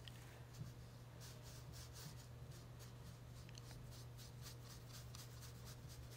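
Faint, quick, repeated strokes of a watercolour brush on paper, about four a second, over a steady low hum.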